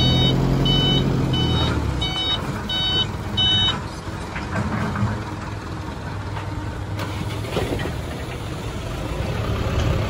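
Dump truck engine running, with a reversing alarm beeping in short repeated pulses for the first four seconds or so, then stopping. The engine hum is strongest at the start and carries on more softly.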